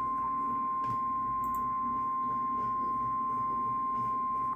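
NOAA Weather Radio warning alarm tone, a single steady 1050 Hz tone held at even level that cuts off suddenly near the end. It signals that a warning message follows.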